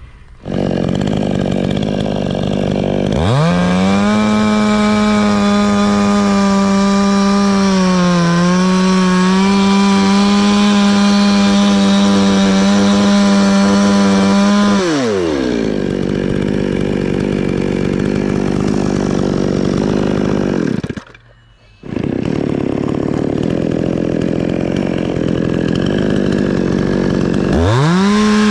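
Chainsaw running at idle, then revved to full throttle and held there while cutting wood, its pitch dipping briefly under load. It drops back to idle, cuts out for about a second, and revs up again near the end.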